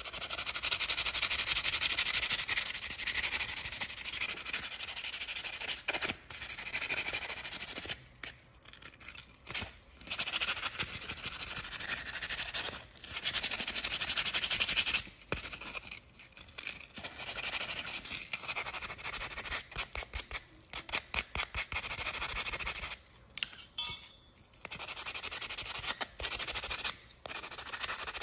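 Sandpaper rubbed by hand over a small die-cast metal truck body to smooth the surface: scratchy strokes in spells with short pauses, some of them quick back-and-forth strokes.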